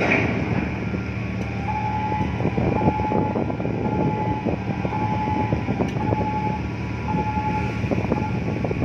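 Background music: a steady low drone under a short high note that repeats about once a second, with many clicks.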